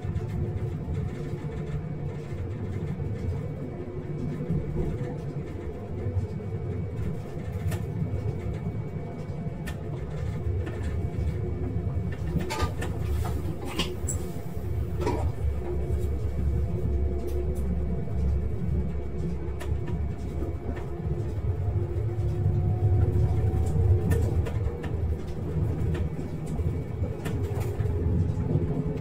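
Diesel railcar running along the track, heard from on board: a steady low rumble with a faint hum from the engine and drive that rises slightly in pitch in the second half, and a few sharp clicks about halfway through.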